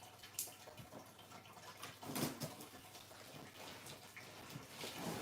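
Faint, steady trickle and splash of water from a turtle tank, broken by a click about half a second in and a couple of short knocks or rustles.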